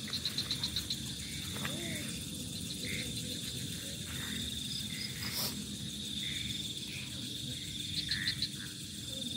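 Crickets trilling steadily at night, with series of quick chirps at the start and again near the end, over a low rumble of background noise.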